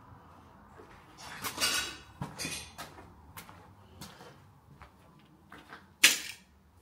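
Irregular crunching and scraping of footsteps over a debris-strewn floor, loudest a little over a second in, then one sharp loud crack about six seconds in.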